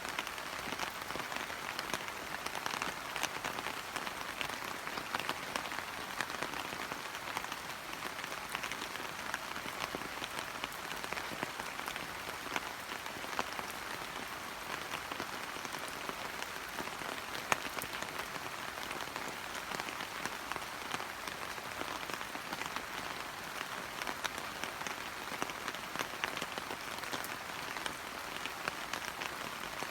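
Steady rain falling on hydrangea leaves and flowers, a dense patter of many small drops with now and then a louder single drip.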